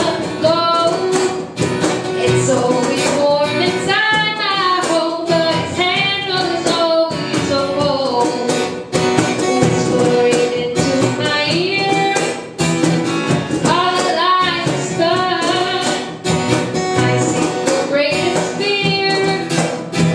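Young female voice singing a song into a microphone, accompanied by a strummed acoustic guitar.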